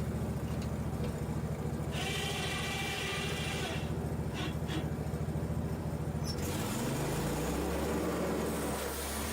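Portable bandsaw mill running under load, its engine steady while the blade cuts, with a few sharp cracks about four and a half seconds in as the blade-wheel shaft breaks under the shroud. The cutting hiss stops about six seconds in, and the engine drops to a lower, steady speed.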